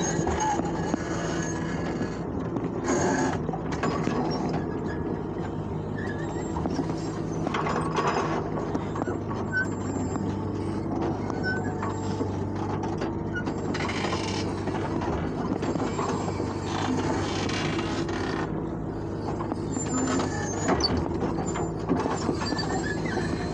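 Bulldozer's diesel engine running steadily at work, with a few short noisy bursts over the engine sound.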